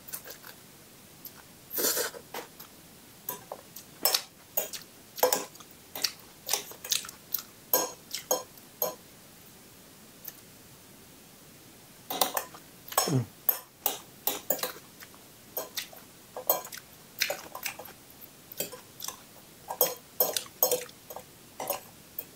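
Eating fried instant noodles into a clip-on microphone: chewing, with a metal fork and spoon clicking and scraping against the bowl in irregular bursts, pausing for a few seconds midway.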